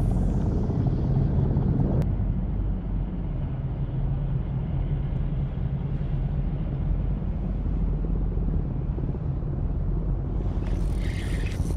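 Motorboat engine running steadily nearby, a low hum. Near the end a higher rattling joins in as the fishing reel is cranked with a fish on.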